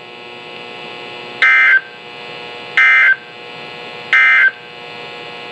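NOAA Weather Radio SAME digital data bursts: three short, identical buzzy chirps about a second and a half apart, the end-of-message code that closes the broadcast alert. A faint radio hiss sits under them.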